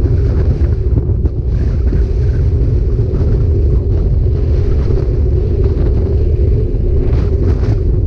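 Loud, steady wind rumble on the microphone of a camera carried on a moving bike, deep and unbroken.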